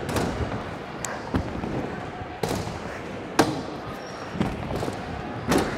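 Stunt scooters knocking and landing on plywood ramps: a string of sharp thuds and clacks, the loudest about three and a half seconds in, over steady background noise.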